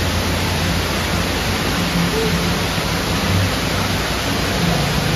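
The Dubai Mall's multi-storey indoor waterfall: water cascading down a tall wall in a steady rushing hiss, with a low hum underneath.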